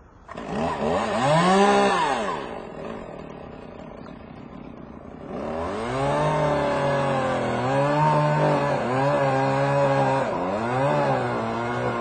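Chainsaw revved up and back down once, then from about halfway through running at high speed with its pitch dipping briefly a few times.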